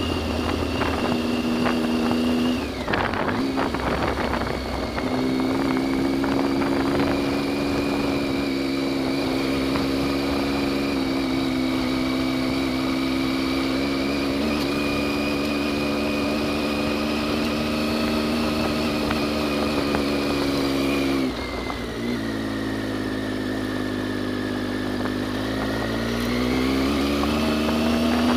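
Adventure motorcycle's engine running at steady revs on a dirt road. The engine note drops suddenly about three-quarters of the way through, then climbs again near the end.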